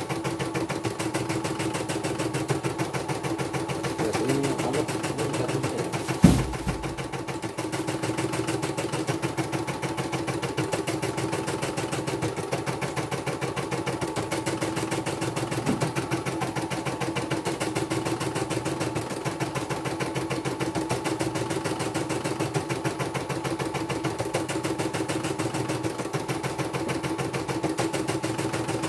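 CNY computerized embroidery machine stitching steadily, its needle running in a fast, even rhythm as the hoop carries the fabric through the design. A single loud thud cuts in about six seconds in.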